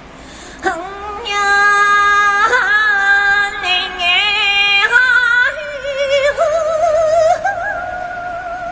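A woman's wordless vocal performance: high sung notes that start suddenly about half a second in, bend and glide with vibrato, then settle into one long held, wavering note in the second half.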